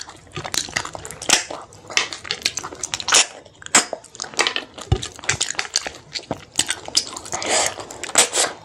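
Close-miked eating sounds of a person eating freshwater snails and rice by hand: wet chewing, lip smacks and sucking the meat from a snail shell, heard as a rapid, irregular run of sharp clicks.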